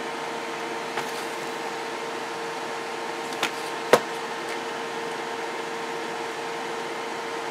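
Steady fan-like hum with a constant tone, broken by three short clicks and knocks as the opened CB radio's aluminium chassis is handled, the sharpest about four seconds in.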